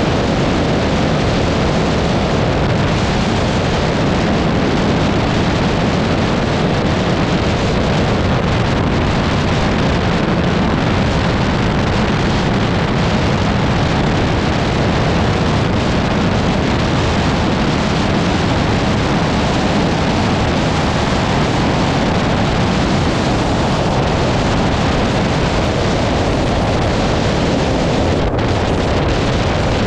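Steady wind rush on the microphone of a camera mounted on a motorcycle riding at road speed, with the bike's engine running beneath it.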